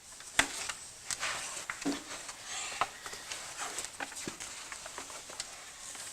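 Irregular clicks, knocks and rustling in a small room, the loudest click about half a second in.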